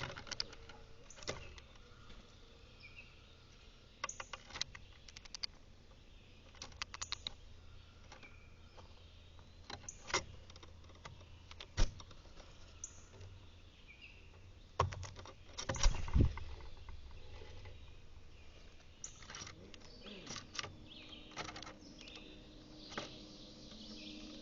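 Backyard birds giving short chirps and calls, mixed with many sharp taps and clicks and a few heavier knocks about halfway through.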